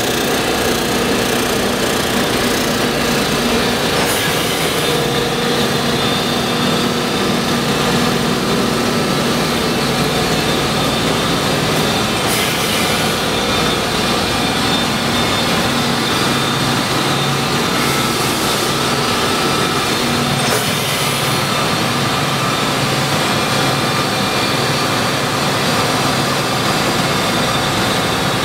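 Large Mattison industrial surface grinder running under power: a steady machinery drone with several held hum tones that shift a little over time, and a light click about every eight seconds.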